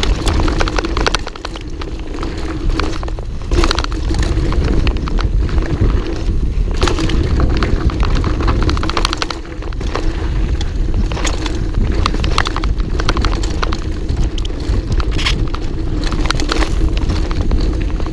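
Mountain bike ridden fast down a dirt forest trail: a steady rush of riding noise from the tyres on dirt, with the bike rattling in many quick sharp clicks over the bumps and roots.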